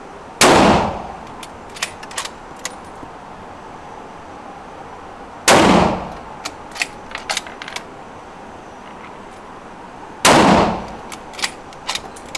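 Three rifle shots about five seconds apart, each with a short echo off the indoor range, from a bipod-mounted bolt-action rifle. After each shot come a few quick clicks as the bolt is worked to chamber the next round.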